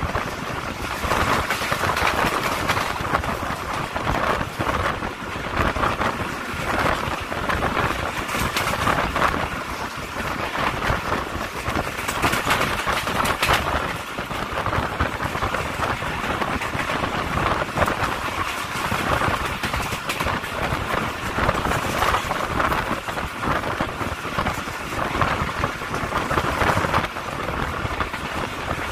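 Awam Express passenger train running at speed, heard from an open coach door: a steady rushing noise of wheels on the rails and wind streaming past, with many small knocks from the track.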